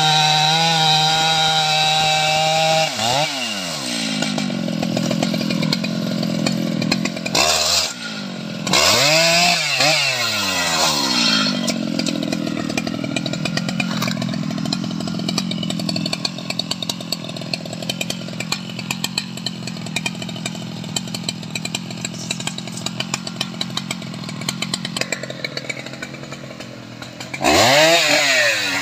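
Large Stihl two-stroke chainsaw at full throttle cutting through a mahogany log. About three seconds in the engine falls away to idle, with a few quick throttle blips. It then idles steadily until it revs up to full speed again near the end.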